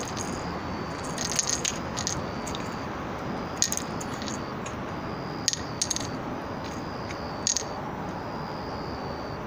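A cat's small red toy ball jingling in short bursts as the cat paws and bites at it on stone paving. There are six or seven bursts of clicks, each with a high ringing after it.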